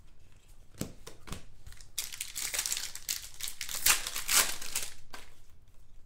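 Foil wrapper of a 2019 Prizm Football trading-card pack being torn open and crinkled: a dense crackle from about two seconds in to about five, loudest near the end. A few light card clicks come before it.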